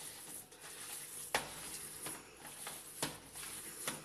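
Hands kneading minced chicken breast with spices and cornstarch in a plastic tub: quiet wet handling sounds, with about four short knocks.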